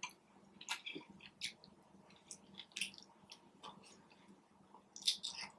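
Faint, close-up chewing with wet mouth clicks and smacks, scattered irregularly, a few louder smacks near the end.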